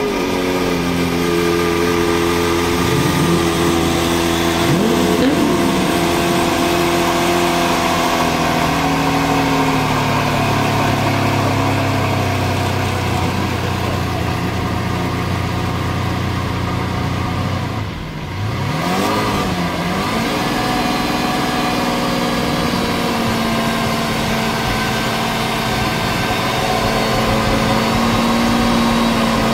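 Lamborghini Veneno's 6.5-litre V12 idling steadily just after start-up, with short throttle blips about three and five seconds in and again near nineteen seconds.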